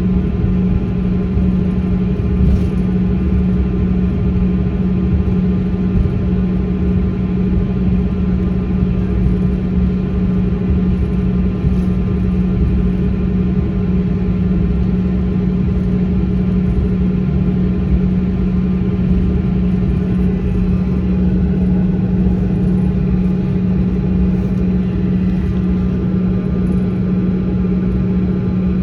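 Steady drone inside a jet airliner's cabin on the ground after landing: a strong low hum from the engines and air system over a rumble, with a few faint steady whines above it.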